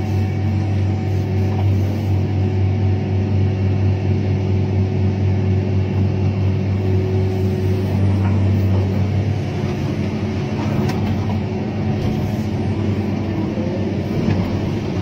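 Komatsu PC1250 excavator's diesel engine and hydraulics running under load, heard inside the cab as a deep, steady hum with a few steady tones above it. It eases slightly a little past the middle as the bucket works.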